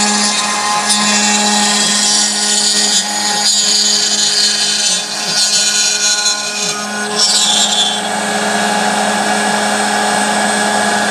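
3018 desktop CNC router milling wood: its brushless spindle runs with a steady tone while the end mill cuts, and the cutting noise comes and goes. The stepper motors rise and fall in pitch as the axes move.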